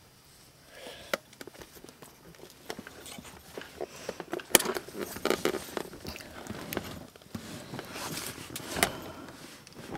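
Irregular rustling, shuffling and light knocks close to the microphone, getting busier after a few seconds, with a sharper knock about halfway through and again near the end.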